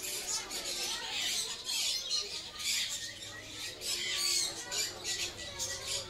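Many caged birds chattering at once: dense, overlapping high-pitched chirps and squawks.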